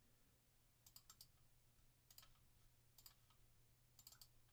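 Near silence with faint, sharp clicks in small clusters of two or three, about one cluster a second.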